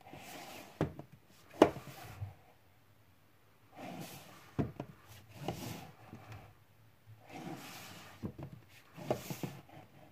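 Blu-ray cases being handled on a wooden shelf: tipped forward and slid against each other, making rubbing and scraping with sharp clacks. There are three bouts of it, and the sharpest clack comes about one and a half seconds in.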